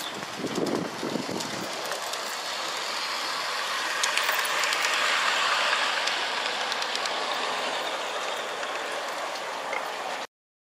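G-scale model train running on outdoor garden track: the motor and wheels make a steady rolling noise with scattered clicks, loudest as the cars pass close about four to six seconds in. The sound cuts off abruptly shortly before the end.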